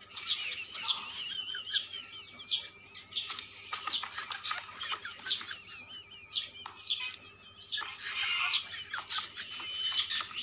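Mouse squeaking over and over in high-pitched chirps and short wavering squeals, mixed with many sharp clicks.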